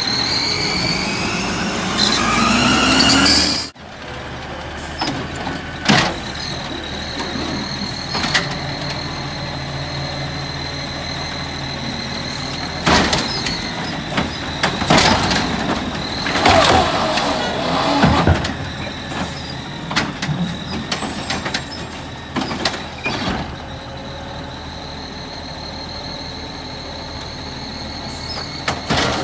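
Natural-gas automated side-loader garbage truck working its hydraulic arm: a rising whine as the arm moves, cutting off suddenly about four seconds in. Then the engine runs with a steady high whine over it, broken by several loud clanks and bangs of the arm and carts.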